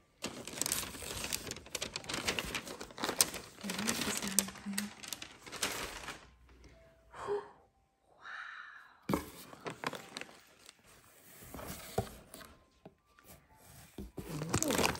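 Packaging being handled as a box is unpacked: cardboard flaps and plastic snack bags rustling and crinkling, with a quieter pause of a few seconds in the middle.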